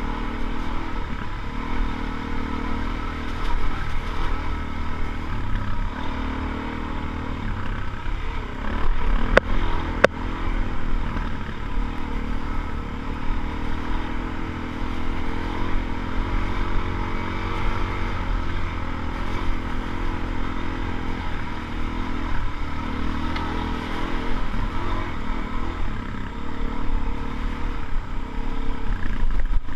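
Motorcycle engine running steadily as the bike is ridden over dirt, its pitch shifting a little with the throttle. Two sharp knocks come a half second apart about nine and a half seconds in.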